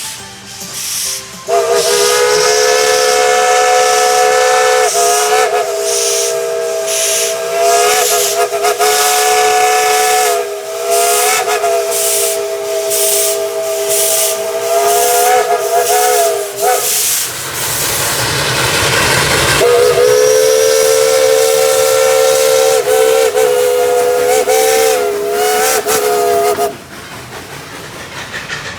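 A 5-inch Lunkenheimer three-chime steam whistle on locomotive #192 blowing long blasts: a chord of several tones whose pitch dips briefly now and then. Near the middle it gives way to a few seconds of loud steam hiss, then sounds again and stops near the end.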